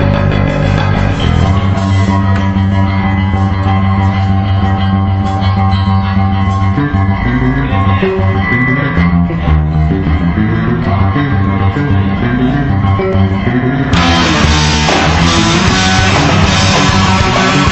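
A rock band playing live, with electric guitars, bass and drums. About fourteen seconds in the sound turns fuller and brighter as the band comes in harder.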